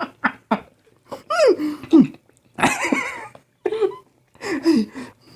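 A person coughing, with short voiced sounds between the coughs, while eating very spicy pickled fruit.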